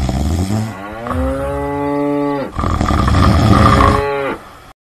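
Cow mooing: two long moos one after the other, each rising in pitch at the start and then held.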